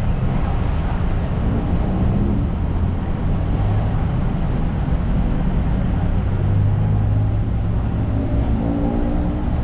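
Road traffic: engines of passing motor vehicles running in a steady low rumble that grows heavier in the middle.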